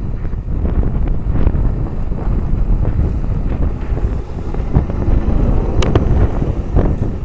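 Wind buffeting the microphone over a hi-rail pickup truck rolling along the railway track as it approaches and passes close by. A couple of sharp clicks come near the end.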